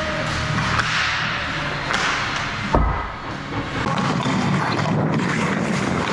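Ice hockey play heard up close: skate blades scraping and carving on the ice, with one heavy thud just under three seconds in.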